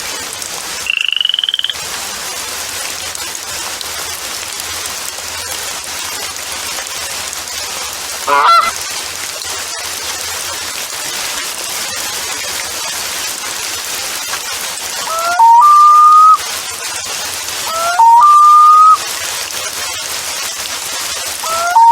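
Three loud honks about three seconds apart near the end, each sliding up in pitch and then holding a steady tone for about a second, over a steady hiss. A short high tone comes about a second in and a brief chirp around eight seconds.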